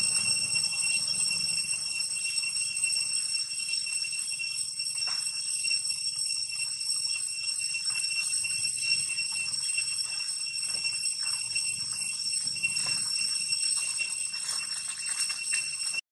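Steady high-pitched insect drone over a low background hum, with a few brief faint rustles.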